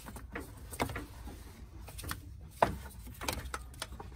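A rubber serpentine belt being handled and worked around the engine's pulleys by hand, giving soft rubbing and several light knocks. The sharpest knock comes about two and a half seconds in.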